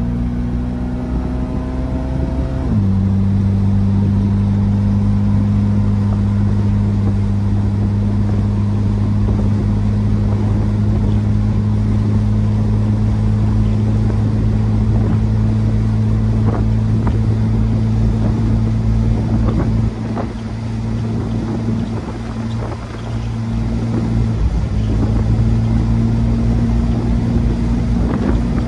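Fiat 124 Spider's 2.0-litre twin-cam four, with a 34ADF carburettor and ANSA muffler, pulling at highway speed. About three seconds in its pitch drops suddenly as it shifts up, then it runs at a steady cruise. The engine note eases off about twenty seconds in and comes back a few seconds later, with wind noise over the microphone throughout.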